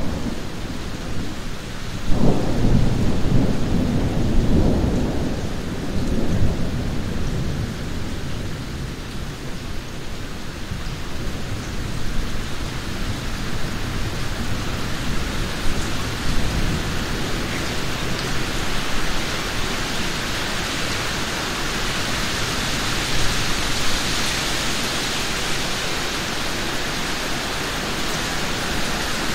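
Steady rain falling, with a deep rumble of distant thunder that starts about two seconds in and dies away over the next five seconds. The rain hiss grows stronger through the second half.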